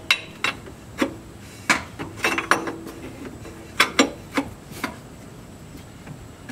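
Irregular sharp metallic clinks and clicks of a large wrench working on the transfer case switch as it is unscrewed.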